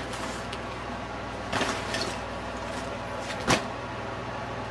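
Handling noise of nylon pouches being moved about by hand: a short rustle about a second and a half in and a sharp click about three and a half seconds in, over a steady low hum.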